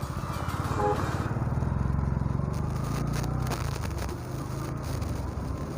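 Motorcycle engine running while the bike is ridden, getting louder about a second in.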